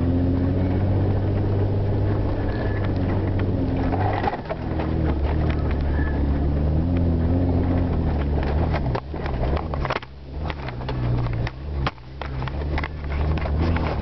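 Vehicle engine running under load in a low gear, heard from inside the cab, its pitch shifting a few times while it climbs a steep dirt track. From about eight seconds in, a run of knocks and rattles comes through as the vehicle jolts over the rough ground.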